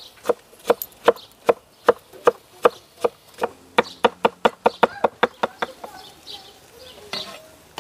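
Kitchen knife chopping salad ingredients finely, a regular run of sharp strokes that quickens about halfway through and stops about six seconds in.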